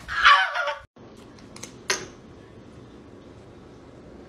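A short, loud, high-pitched cry lasting under a second, then a steady low hum with a sharp click about two seconds in.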